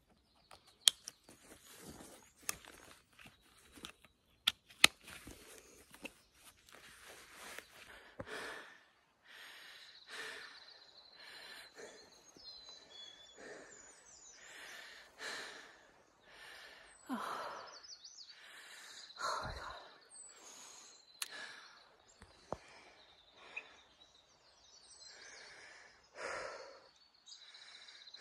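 A hiker's footsteps with a few sharp clicks in the first several seconds, then heavy breathing while walking, about one breath a second. Faint bird chirps come and go behind it.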